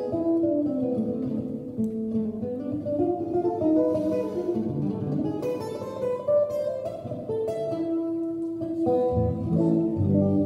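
Solo archtop hollow-body guitar playing an instrumental piece: a melody picked over chords, with deeper bass notes near the end.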